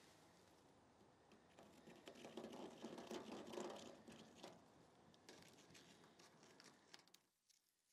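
Near silence with faint scratching and handling noises from work on the steel trailer deck, swelling a little in the middle and dying away near the end, with a few light clicks.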